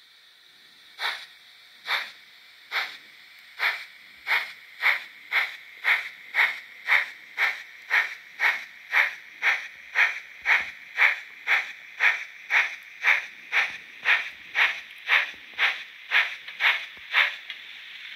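Digital sound decoder of an HO-scale Fleischmann Br 18 steam locomotive model playing steam exhaust chuffs, first a few slow ones, then quickening to a steady two or so a second, as the locomotive pulls away. The chuffs stop near the end, leaving a steady hiss.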